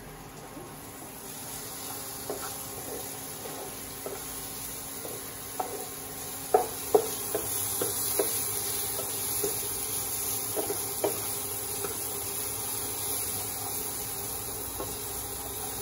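Chopped vegetables sizzling in a nonstick frying pan while a wooden spatula stirs them, scraping and knocking against the pan. The sizzle builds over the first couple of seconds, and the two loudest knocks come about six and seven seconds in.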